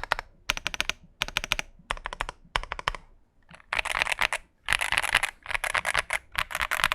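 Typing on an XVX Womier S-K71 full-aluminium mechanical keyboard fitted with Gateron Luciola linear switches: short runs of quick keystrokes, a brief pause a little after three seconds in, then faster, denser typing.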